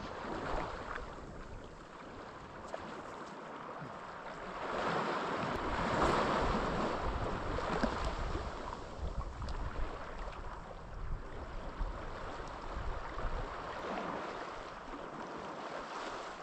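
Sea waves washing over a rocky shore, one surge building about five seconds in and slowly falling away, with wind rumbling on the microphone.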